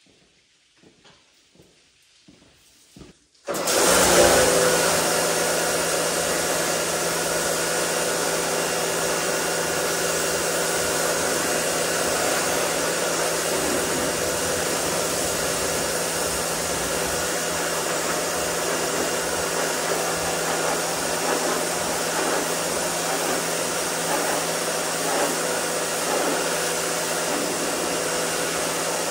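Pressure washer starting up about three and a half seconds in, then running steadily with a constant motor hum and the hiss of the wand's spray. The spray is rinsing touchless-wash foam off a pickup's wheel and body.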